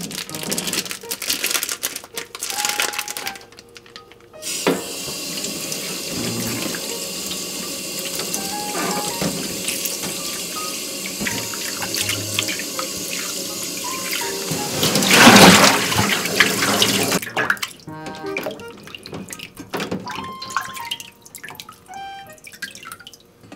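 Rustling and clicks as a raw beef tongue is taken out of its plastic wrapping, then, about four seconds in, a kitchen tap starts running into a stainless-steel basin in the sink, with a loud splashing surge as the tongue is scrubbed by hand. The tap stops about seventeen seconds in, leaving wet slaps, splashes and clinks of the tongue being handled in the basin.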